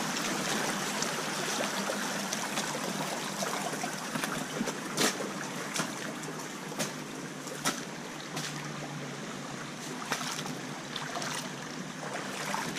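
Shallow creek water trickling over rocks and gravel, a steady rushing hiss. Several sharp crunches of footsteps on the creek stones cut through it, starting about five seconds in.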